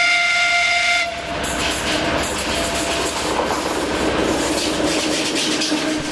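TEP70 diesel passenger locomotive's horn sounding one steady blast that cuts off about a second in, then the locomotive and its passenger coaches passing close by at speed, the diesel engine running under a loud rumble and clatter of wheels on the rails.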